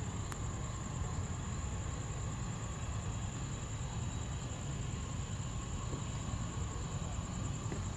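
Jet engines of a Boeing 767-300F twinjet freighter, a steady rumble with a hiss as the airliner moves along the runway.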